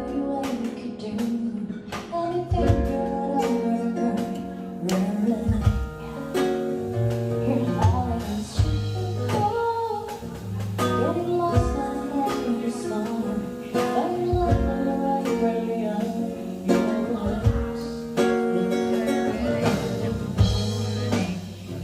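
A song: a voice singing over guitar accompaniment with a steady beat.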